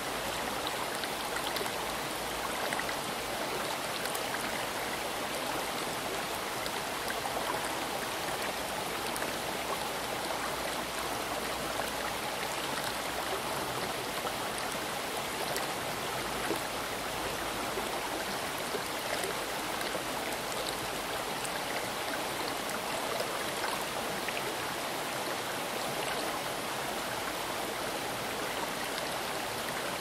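Moving water running steadily, an even, continuous rush with small splashes and drips over it.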